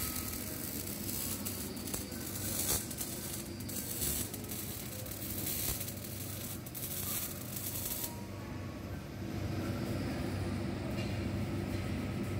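Welding-shop noise: a steady crackling hiss over a constant low machine hum. The crackle fits a MIG arc running somewhere in the shop. The high hiss thins out about eight seconds in.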